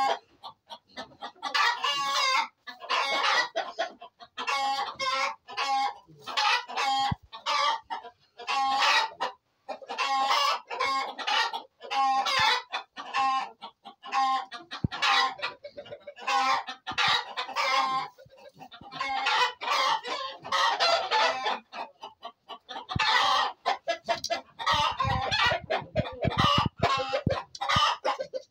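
Chickens clucking and calling over one another in a steady stream of short, pitched calls, with a rooster crowing among them. Some low knocks come in near the end.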